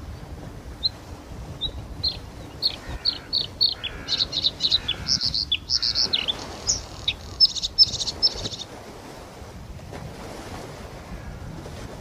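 Bluethroat singing: single high chirps that come faster and faster, then a quick run of ringing high notes that stops about nine seconds in, over a steady low background rumble.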